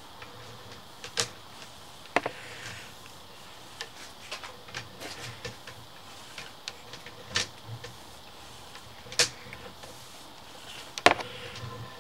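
Sewer inspection camera's push cable being pulled back out of the pipe: irregular clicks and knocks, a few of them sharp and loud, over a faint steady hum.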